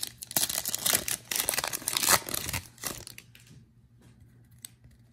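Wrapper of a 2021 Illusions football card pack being torn open and crinkled by hand. It stops a little over halfway through, leaving only a few faint ticks.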